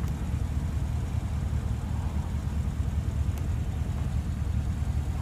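Power-folding side mirror of a 2015 Porsche Panamera Turbo folding in, a faint motor whir ending in a short click about three and a half seconds in, over a steady low rumble.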